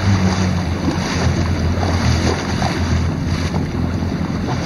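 Jet ski engine running at low speed with a steady low drone, under splashing water and wind buffeting the microphone.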